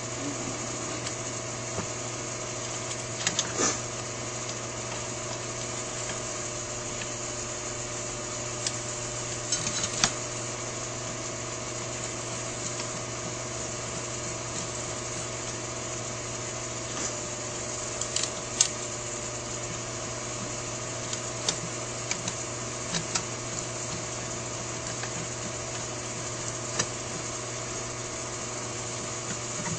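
Steady background hum with scattered light clicks and taps of small metal carburetor parts being handled, as the secondary venturi is fitted to a Holley 4000 air horn with its two screws.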